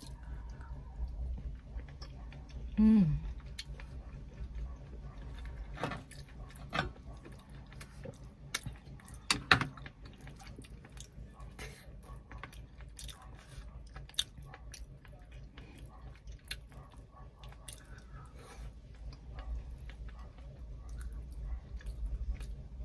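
Close mouth sounds of someone eating soft vinegar-stewed tilapia and rice by hand: chewing and lip smacks, with scattered small clicks. There is a brief voiced murmur about three seconds in.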